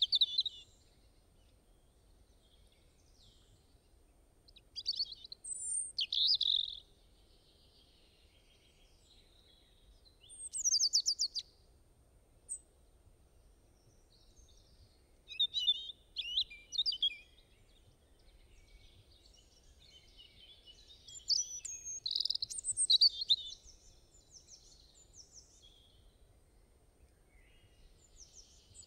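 An eagle calling: bursts of rapid, high-pitched notes, five or so, spaced a few seconds apart with quiet gaps between.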